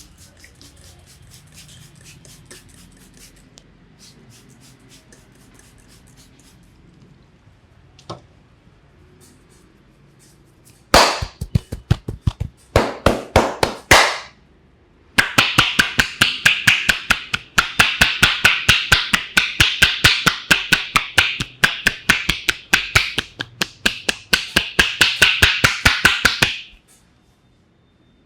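Percussive massage strokes from a barber's hands during an Indian head massage: rapid, even slaps or taps, a short run followed by a long fast run of about five strikes a second that stops abruptly near the end. Before them, faint rubbing and rustling.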